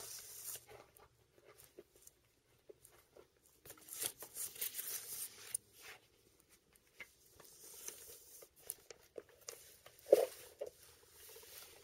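Faint rustling of paper signatures and a card cover being handled while they are sewn with needle and thread, with the hiss of thread drawn through the spine's punched holes and scattered small clicks. A sharper tap comes about ten seconds in.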